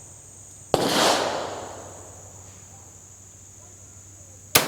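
Two rifle shots from a Swiss Vetterli, about four seconds apart, one about a second in and the other near the end. Each is a sharp crack followed by an echo that rolls away over about a second.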